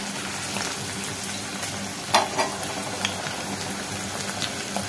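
Sliced onions sizzling in hot mustard oil in a steel kadhai while being stirred, with a couple of sharp clinks of the spatula against the pan about two seconds in.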